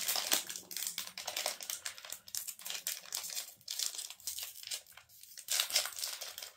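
Crinkly trading-card booster-pack wrapper rustling and crackling as it is worked open by hand, in irregular bursts with a short lull about two-thirds of the way through.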